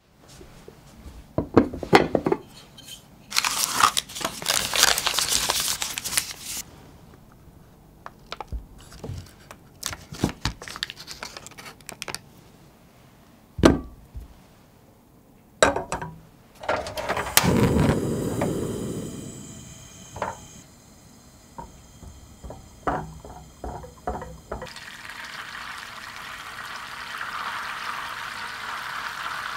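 Kitchen handling sounds: scattered knocks and clinks of a knife and a block of butter against a small stainless steel saucepan, with some rustling early on. In the last few seconds the unsalted butter melts over the heat, and a steady sizzle builds as it begins to bubble on its way to browned butter.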